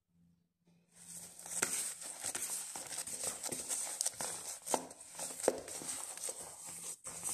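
Disposable plastic gloves crinkling and soft yeast dough being squeezed, slapped and pulled against a plastic bowl as the risen dough is punched down and kneaded by hand. It starts about a second in, a continuous rustle with a few sharp clicks and slaps.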